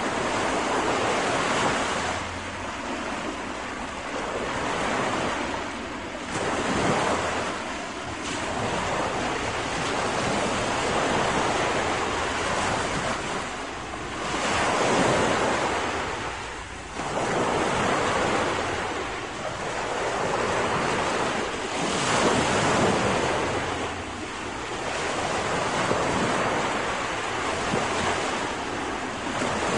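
Small waves breaking and washing up on a sandy shore, the surf swelling and easing every few seconds, with wind buffeting the microphone.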